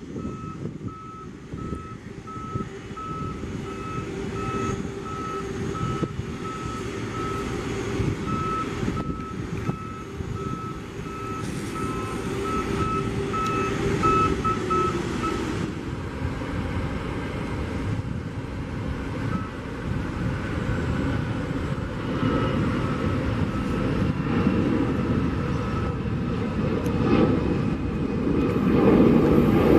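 Reversing alarm of an airport ground-support vehicle beeping about once a second over a running engine, stopping about halfway through. Then a jet airliner's engines at takeoff power build up and are loudest near the end, from a LATAM Airbus A320 climbing out.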